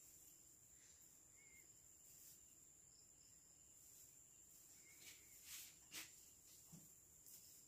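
Near silence: a faint steady high-pitched tone, with a few soft, short rustles about five and six seconds in as the bristly plastic branches of an artificial pine Christmas tree are handled.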